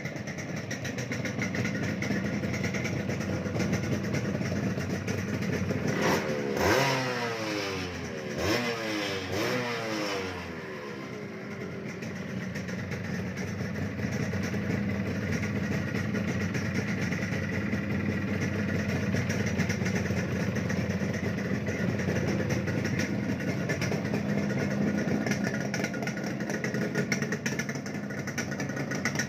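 Yamaha RX-King 135 two-stroke single-cylinder motorcycle engine idling, revved up and back down twice about six and eight seconds in, then running steadily again.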